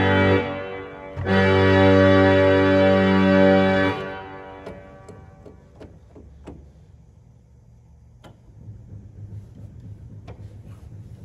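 An 1890 Roques pipe organ's second manual with all its stops drawn (tutti) sounds a full chord, held about three seconds, then released into a long church reverberation. Afterwards come a few sharp clicks as the organ's stop tabs are flipped to set the next registration, over a faint low hum.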